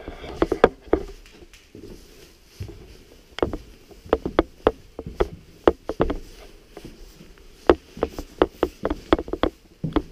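Irregular footsteps on the bare hard floors and stairs of an empty house: sharp knocks and scuffs, some in quick clusters of several a second.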